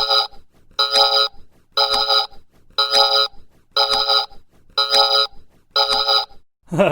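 An electronic alarm or buzzer tone pulsing about once a second, each pulse a rough, many-toned beep about half a second long. Near the end a short, different wavering sound cuts in.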